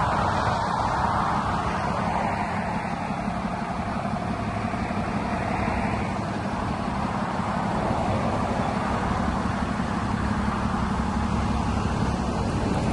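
DAF LF 230 truck's diesel engine idling steadily.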